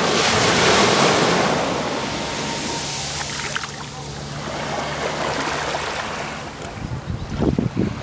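Shallow surf washing up over the sand at the water's edge: a hissing rush of water that swells in the first second, fades, and swells again mid-way. Near the end, gusts of wind buffet the microphone.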